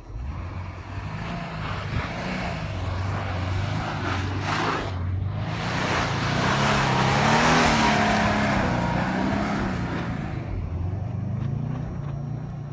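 2011 Subaru WRX's turbocharged flat-four engine revving up and down as the car drifts on snow, its pitch rising and falling. A rushing hiss of tyres on snow swells as the car comes close, loudest about seven to eight seconds in, then fades as it moves away.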